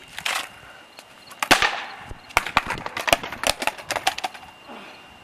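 Skateboard clattering on concrete: one loud wooden smack, then a quick, uneven run of sharp clacks and knocks.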